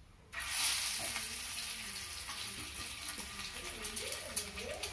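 Halved hard-boiled eggs going into hot oil in a nonstick frying pan: the oil bursts into a steady sizzle about a third of a second in, with frequent sharp crackles and spits.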